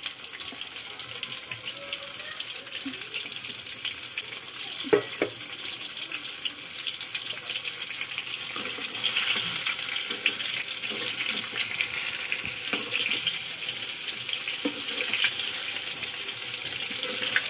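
Hot oil sizzling and crackling in a kadai as pakoras deep-fry, a steady hiss that gets louder about nine seconds in. A single sharp knock about five seconds in.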